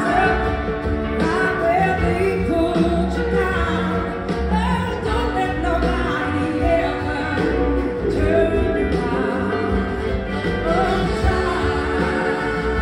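Live band music, a woman singing lead at the microphone over electric guitars, bass, two drum kits and keyboards, with backing singers.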